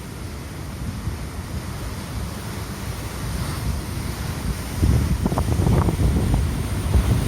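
Big waves of a rough sea surging and breaking, with wind buffeting the microphone; the wind gusts grow louder about five seconds in.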